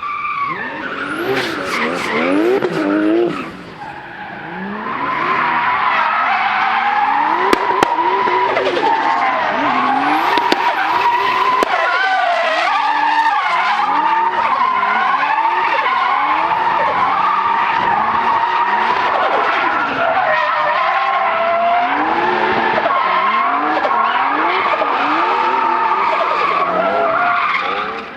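Drift car sliding with its tyres squealing steadily, while the engine revs rise and fall quickly with the throttle. There is a short burst early, a brief drop about four seconds in, then a long unbroken slide that runs until just before the end.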